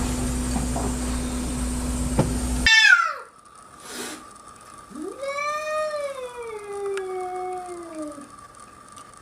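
Steady background noise with a low hum until an abrupt cut about three seconds in, then a domestic cat meowing. The cat gives a short falling meow and then one long, drawn-out meow that rises and slowly falls over about three seconds.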